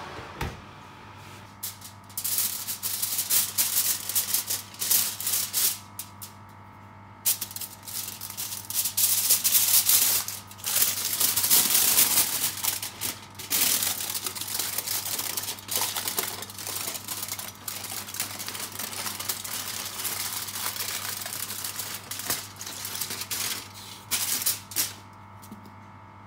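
Aluminium foil crinkling and crackling in irregular bursts as it is peeled off a freshly baked loaf, with a couple of short pauses. A steady low hum runs underneath.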